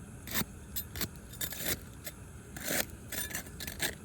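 A roof snake being worked under a three-tab shingle to break its sealant bond: a string of short, irregular scrapes and clicks of the tool against the gritty shingle, which is still stuck.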